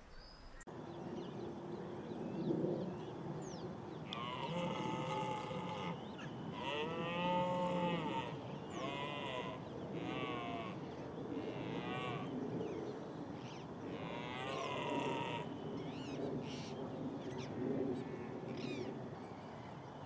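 Red deer stag roaring in the autumn rut: a run of about six deep, drawn-out roars one after another, the first coming about four seconds in and the last ending past the middle.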